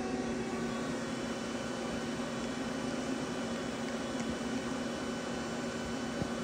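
Sunfirm CHT 5680 CNC horizontal lathe running with its spindle turning slowly in second gear: a steady machine hum with a constant low tone and an even mechanical noise.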